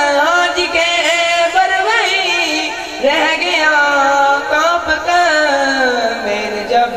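A boy's solo voice singing an Urdu devotional manqabat to Ali into a microphone, in long, drawn-out, wavering phrases, with no instruments.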